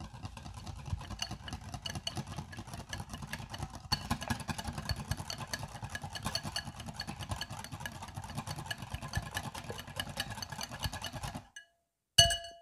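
Wire balloon whisk beating a thick yogurt mixture in a bowl: a fast, steady clatter of wires against the bowl with a wet slapping underneath. It stops near the end and is followed by a single sharp knock.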